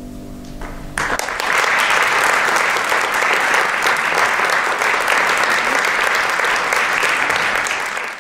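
The last piano chord fades away. About a second in, an audience breaks into loud, steady applause.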